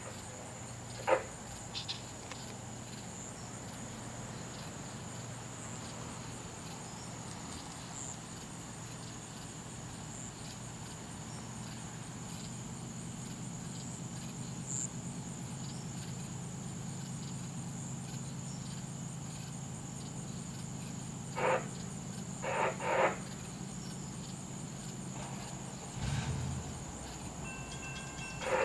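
Night insects trilling steadily at a high pitch, over the low rumble of an approaching diesel freight train that grows slightly louder. A few short, sharp louder sounds stand out, one about a second in and three more close together about three quarters of the way through. Near the end, grade-crossing bells start ringing as the crossing signals activate.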